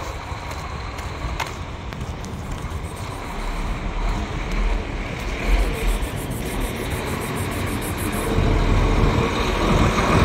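Low, steady outdoor rumble, like road traffic, that grows louder over the last couple of seconds.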